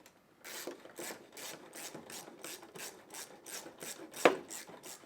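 Hand ratchet wrench with a 10 mm socket on an extension turning out a headlight mounting bolt: the pawl rasps on each quick back-swing, about four strokes a second, with one sharper knock a little past four seconds in.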